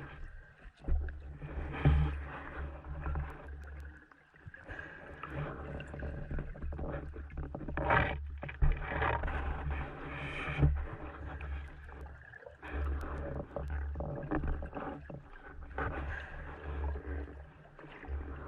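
Muffled underwater noise picked up by an action camera in its waterproof housing: an uneven low rumble of water moving past, with swells of hiss and scattered knocks.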